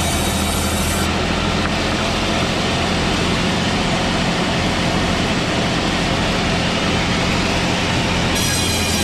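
Old manual-type sawmill machine running on pine logs: steady, loud machine noise with a low hum. The highest part of the hiss drops away about a second in and returns near the end.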